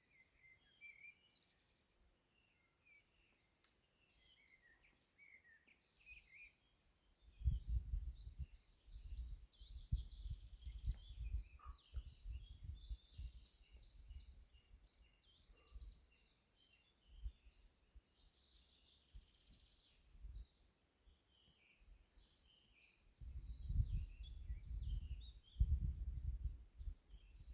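Wild birds chirping and singing, with low rumbling gusts on the microphone starting about seven seconds in and returning strongly near the end.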